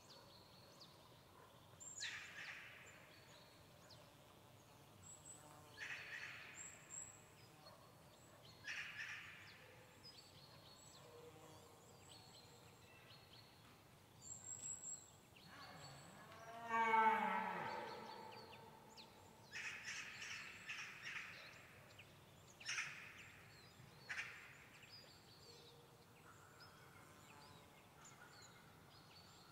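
A red deer stag gives one long rutting roar about halfway through, falling in pitch as it goes. Crows caw at intervals around it, with faint high calls of small birds.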